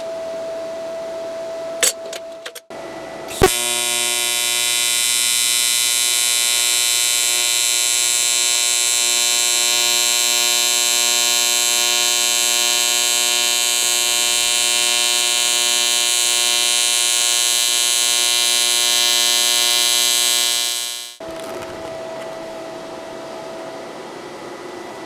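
AC TIG welding arc on aluminum from a YesWelder TIG 200P inverter welder: a steady, even buzz pitched at the machine's 120 Hz AC frequency. It starts with a sharp crackle about three seconds in, holds for some seventeen seconds, and fades out quickly near the end as the current is brought down.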